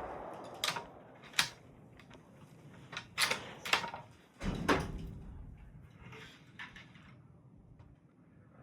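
A series of sharp clacks and knocks, about six in the first five seconds, some with a short ringing tail, then quiet.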